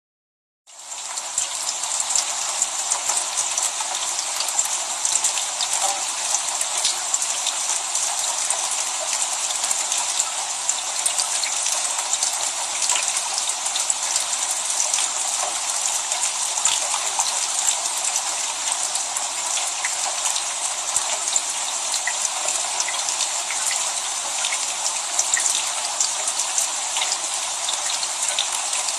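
Steady rain: a dense hiss with the ticks of many individual drops. It fades in about a second in.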